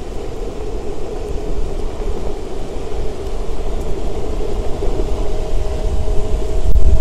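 Viril V1S electric skateboard riding at speed: wheel rumble on the pavement and wind buffeting the microphone, growing louder as it accelerates, with a thin steady whine joining about five seconds in.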